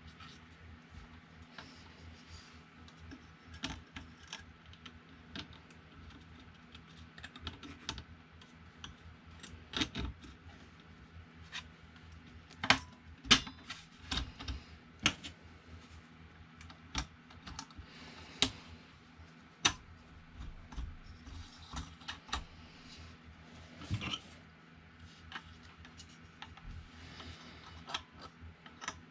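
Scattered light clicks and knocks of small parts and tools being handled, irregular and unrhythmic, with a run of sharper taps through the middle, over a faint steady low hum.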